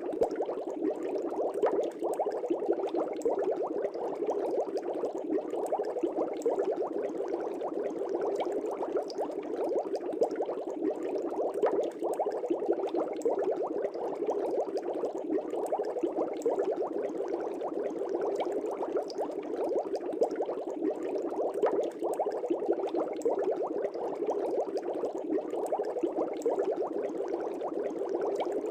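Air bubbles streaming through aquarium water: a steady, dense bubbling made of many small pops, unbroken throughout.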